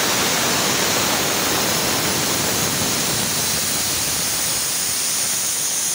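Automatic air release valve venting compressed air in a steady, even hiss.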